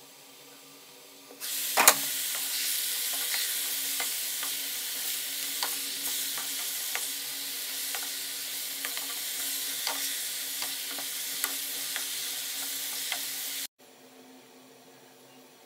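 Chopped mustard greens sizzling in an open pot on the stove, with scattered clicks of a spoon against the pot as they are stirred. The sizzling starts abruptly about a second in and cuts off abruptly near the end.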